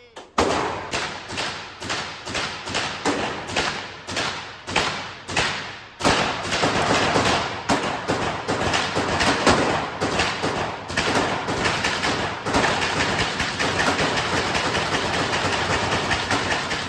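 Gunshots at an indoor shooting range, sharp reports about three a second with a ringing echo, turning about six seconds in into dense, nearly unbroken rapid fire with the shots overlapping.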